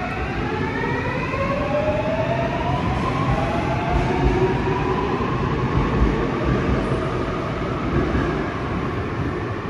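Seoul Subway Line 7 electric train pulling out of the station: the whine of its traction motors climbs steadily in pitch as it gathers speed, over a constant rumble of wheels on rail.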